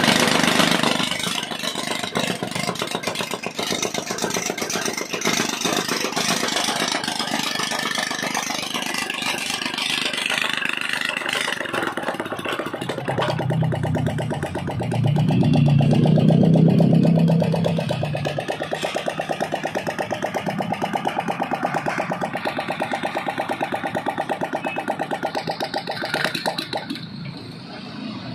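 A Mikasa EC10 tamping rammer's Honda GX160 single-cylinder four-stroke engine running on test. About halfway through it gets louder for a few seconds, then runs steadily with an even pulsing and drops lower near the end.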